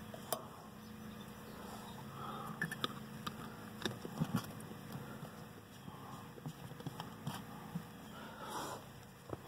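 Faint handling noise: scattered light clicks and taps over a low steady hum.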